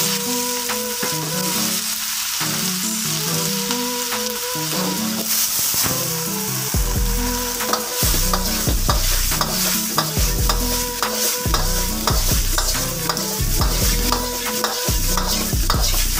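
Pork belly chunks sizzling in hot oil in a steel wok as they are stir-fried, with a metal ladle repeatedly scraping and knocking against the wok; the knocking gets busier and heavier from about halfway through as the meat is tossed.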